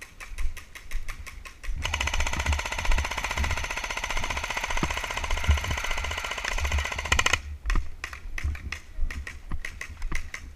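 Airsoft gun firing one long full-auto burst of about five seconds, a fast, even rattle of shots, with scattered single clicks before and after it and low rumbling on the microphone.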